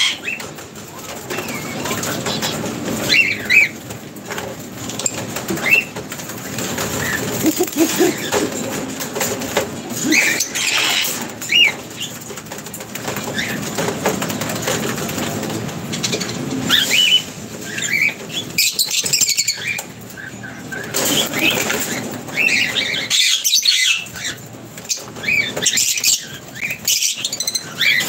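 Lovebirds, white and masked, flapping their wings as they fly on and off a perch, with many short, high chirping calls scattered throughout.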